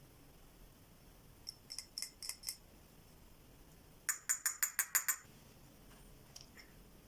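Tapping on a hard kitchen tool, sharp bright clicks. A few light taps come about a second and a half in. A quicker run of about seven louder ones follows near the middle.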